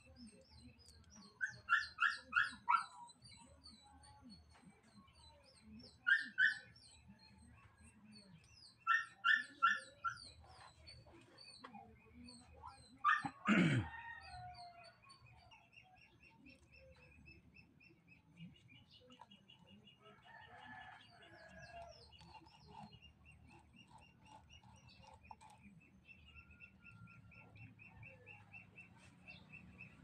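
A dog yapping in short runs of two to four barks, with small birds chirping high above it. In the second half a steady, fast, high-pitched chirping trill takes over.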